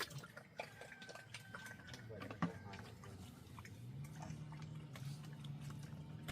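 An animal's low, steady vocal sound in the second half, over scattered chewing-like clicks, with one sharper knock about two and a half seconds in.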